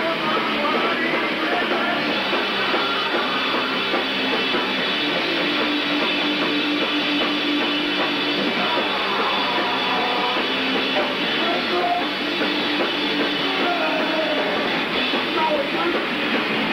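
Live rock band playing loud and without a break: guitar with drums.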